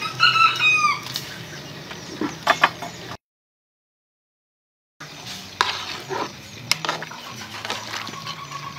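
A rooster crows once near the start, then a metal ladle clinks and scrapes against the soup pot as the soup is stirred. The sound cuts out completely for about two seconds in the middle.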